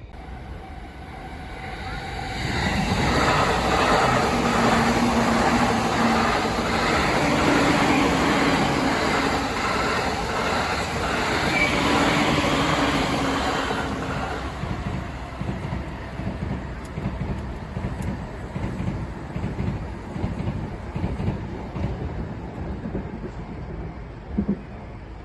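A train passing close by. It swells up about two seconds in, stays loud for some ten seconds and then slowly fades away.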